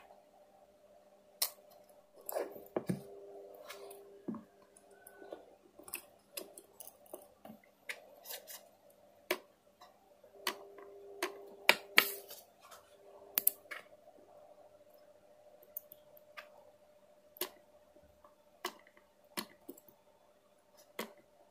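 Irregular small clicks and taps of hand work, a few of them sharper and louder, over a faint steady hum.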